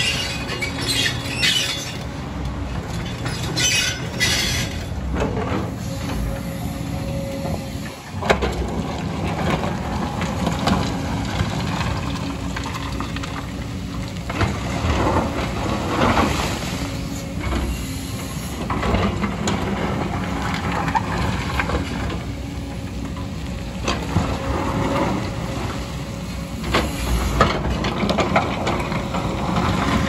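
JCB hydraulic excavator's diesel engine running steadily under load, with its steel bucket scraping and knocking against broken rock and stones clattering. A sharp knock comes about eight seconds in.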